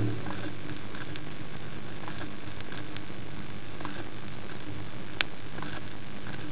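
Vinyl record surface noise in the silent groove between pieces: a steady hiss with scattered faint crackles and one sharp click about five seconds in.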